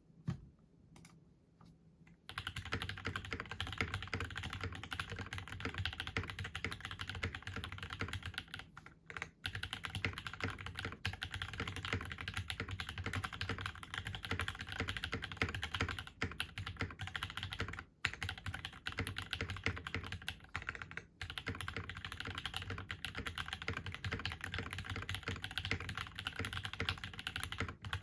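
Typing on a Space65 Cybervoyager mechanical keyboard with lubed Alpaca v2 linear switches, a carbon fiber plate and GMK keycaps. A few single keystrokes, then steady fast typing from about two seconds in, with a few short pauses.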